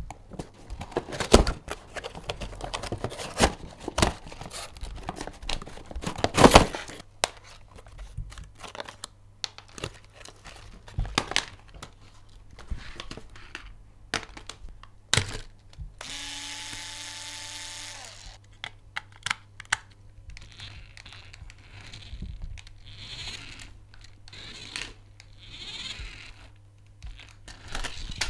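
Unboxing a small toy RC off-road car: clicks, knocks and crinkling of the cardboard box and plastic packaging. About sixteen seconds in, the car's small electric motor whines steadily for about two seconds, followed by scattered softer knocks.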